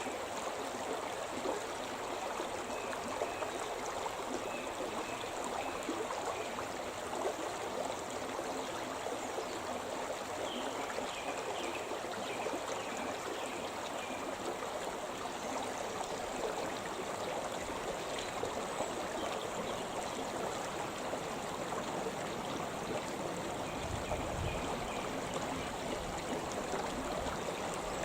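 The Shimna River, a forest mountain river, running freely: a steady, unbroken wash of flowing water.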